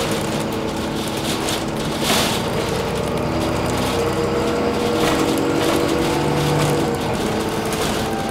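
Alexander Dennis Enviro400 double-decker bus driving, heard inside the passenger cabin: a steady diesel engine drone whose pitch shifts a little, with road noise and rattling of the body and fittings, and a sharp clatter about two seconds in.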